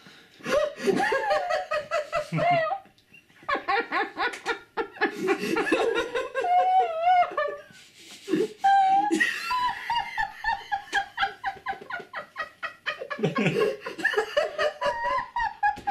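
Several people laughing hard together in rapid bursts, with high, wavering giggles and squeals, easing for a moment about three seconds in before starting up again.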